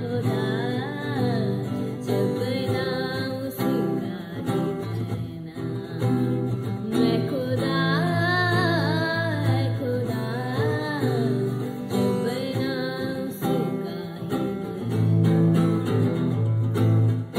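A woman singing a Hindi song solo, accompanying herself on an acoustic guitar strummed in steady chords.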